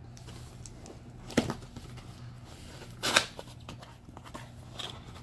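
Cardboard shipping box being handled and opened by hand: two sharp knocks about a second and a half apart, the second with a brief rustle, and a few faint ticks, over a low steady hum.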